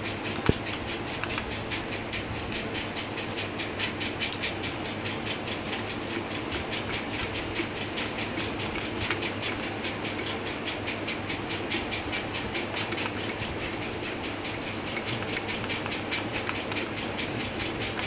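A machine running steadily with a fast, even clicking rhythm.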